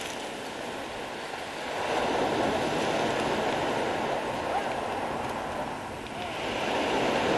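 Sea waves breaking and washing up a pebble beach. The surf swells louder about two seconds in and again near the end.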